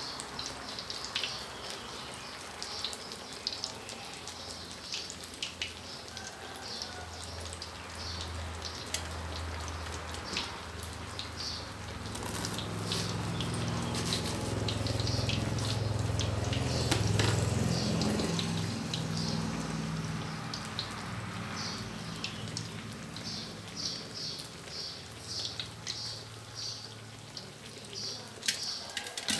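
Bread squares spread with minced pork deep-frying in a wok of hot oil: a steady bubbling sizzle with scattered crackling pops. A low hum swells up in the middle and fades away again.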